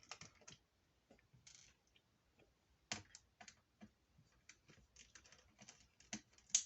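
Faint, irregular small clicks and ticks of a small screwdriver working the screws that hold a laptop battery in place, with one louder click about three seconds in.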